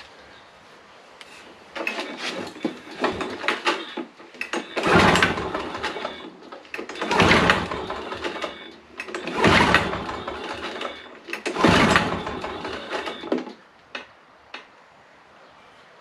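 Suzuki-built 2-cycle 5.5 hp engine of a Toro commercial mower being cranked four times on its recoil pull-starter, each pull about a second long and a couple of seconds apart. It does not start with the choke on, which the owner thinks may mean it is flooded.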